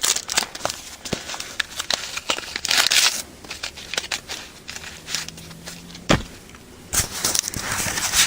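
Rustling and crackling handling noise with scattered clicks, and a sharp thump about six seconds in.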